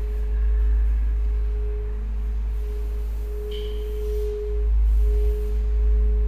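Electronic drone score: a steady pure tone that swells and fades over a deep low rumble, with a brief higher tone about three and a half seconds in.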